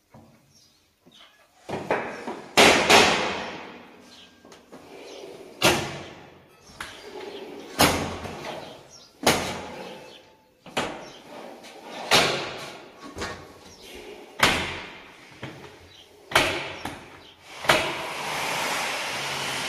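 Sliding window panes being slid along their track and banged shut again and again, about ten sharp knocks spaced a second or two apart.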